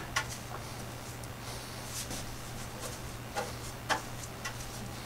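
A paintbrush spreading paint on a car's steel floor pan: a handful of faint clicks and scuffs at uneven intervals, over a steady low hum.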